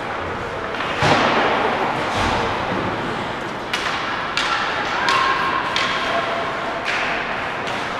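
Ice hockey play in an arena rink: a heavy thud about a second in that rings on through the hall, then several sharp clacks of sticks and puck, over a background of distant voices.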